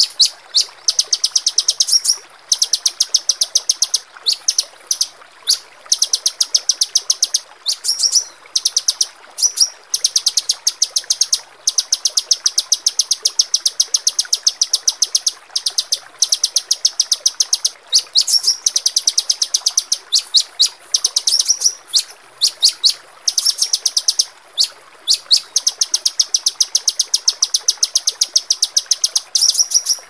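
Small songbirds giving rapid-fire trains of high, sharp chips, many to the second, in runs of one to three seconds broken by brief gaps.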